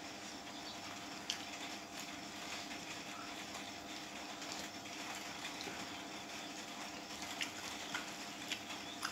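Eating by hand: fingers mixing rice and chicken curry on a plate and chewing, with a few short sharp clicks, over a steady background hiss and hum.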